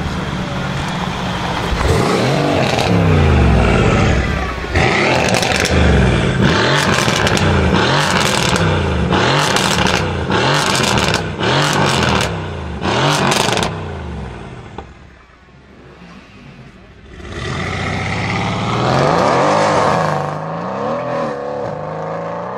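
Mercedes-AMG C63 S twin-turbo V8 revved hard about ten times in quick succession, with sharp exhaust cracks between the revs. The engine drops away briefly, then revs up again as the car accelerates off.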